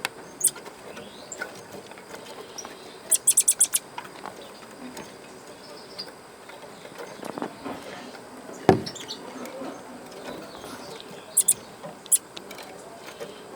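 Short bursts of rapid, high-pitched chirps from a small bird, heard three or four times, over a low background hiss. One sharp knock about nine seconds in.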